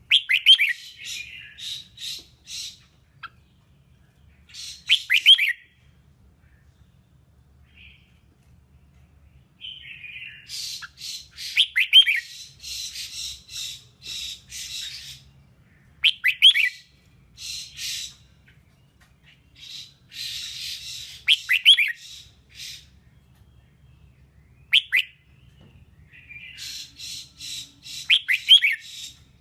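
Red-whiskered bulbul singing in short bursts of quick sweeping chirps mixed with harsher chattering notes. A burst comes every few seconds, with short pauses between.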